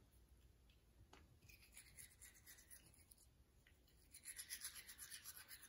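Toothbrush scrubbing a small dog's teeth: faint, quick back-and-forth bristle strokes that grow stronger from about four seconds in.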